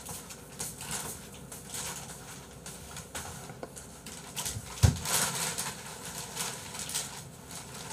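Scattered light clicks and handling noises, with a single low thump about five seconds in.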